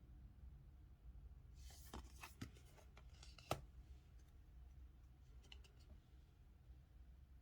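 Tarot cards being handled in a quiet room: a soft slide of card on card about a second and a half in, then a few light taps and clicks as cards are set down, with fainter ticks later, over a low steady hum.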